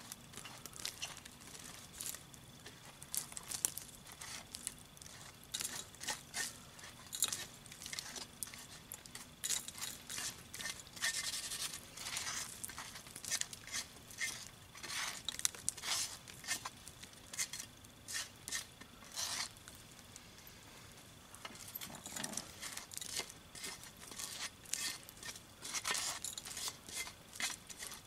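Hot coals and ash being scraped off a Dutch oven lid: irregular scraping and crunching of embers, with clinks against the metal lid. There is a quieter pause of a few seconds a little past the middle.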